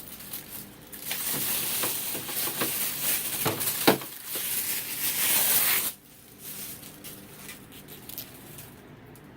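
Packaging being handled during an unboxing: loud rustling and crinkling for about five seconds, with a couple of sharp knocks in the middle, stopping abruptly.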